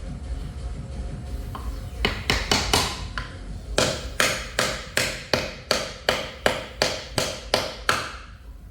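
Repeated hammer blows, about three a second, starting about two seconds in, with a slight metallic ring. They are tapping a part into place on a Tesla Model 3 front electric drive unit during a differential replacement.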